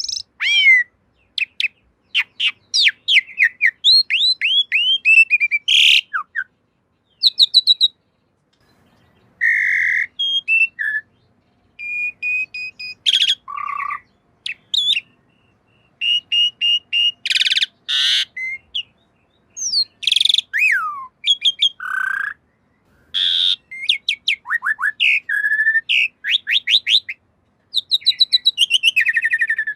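Asian pied starling (jalak suren) singing a varied song: quick runs of repeated whistled notes, falling slurs and a few harsh, scratchy calls, in short phrases broken by brief silent gaps.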